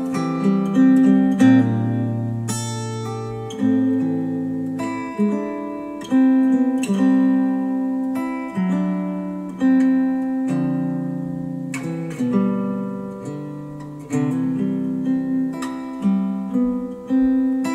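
Acoustic guitar music played back through Focal Chora 806 bookshelf speakers driven by an NAD C700 amplifier and picked up by microphones in the room. Plucked notes and chords ring and fade, with a new chord every second or two.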